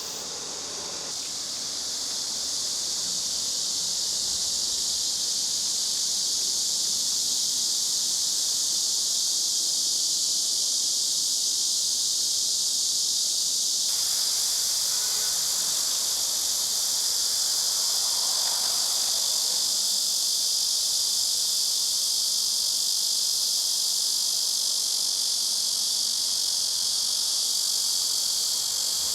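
A dense, steady, high-pitched chorus of insects, swelling over the first few seconds and then holding without pause.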